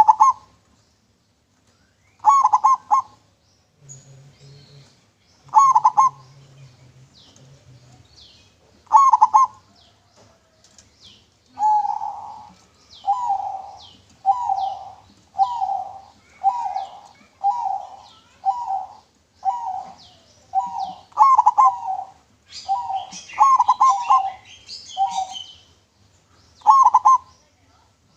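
Zebra dove (perkutut) cooing: a few separate coo phrases a few seconds apart, then a steady run of short coo notes about one a second. Fainter high chirps come in between.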